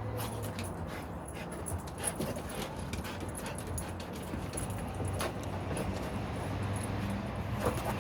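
Dog sounds over a steady low rumble, with a few short knocks about two, five and nearly eight seconds in.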